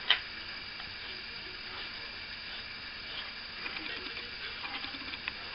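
One sharp tap right at the start, then faint scrapes and small ticks of hand plastering tools working plaster on a ceiling, over a low steady hiss.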